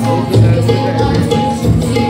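Live music accompanying a stage dance: keyboard notes held over repeated drum beats.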